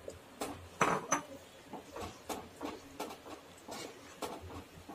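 Wooden spatula knocking and scraping against a cooking pot while a thin, watery gravy is stirred: a string of light, irregular clicks, the loudest about a second in.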